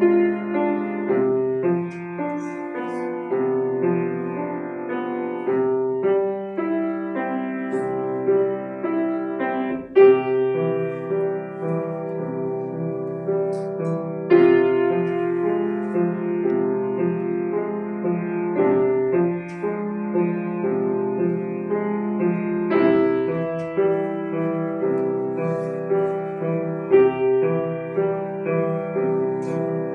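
Piano playing a melody over held chords, the notes changing about once a second.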